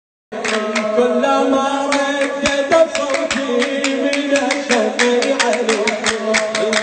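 A man chanting a Shia religious lament into a microphone, holding long, wavering notes over a fast, steady beat of sharp strikes. The sound cuts in abruptly a moment after the start.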